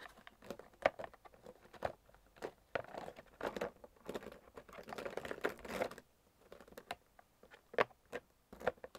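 Plastic marker pens clicking and clacking against one another as someone rummages through a set of them, with rustling. The clatter is busy for about six seconds, then thins to a few separate clicks.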